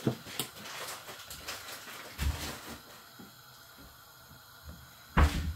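Scattered light clicks and knocks of a wooden spatula and wok being handled, with one louder knock near the end.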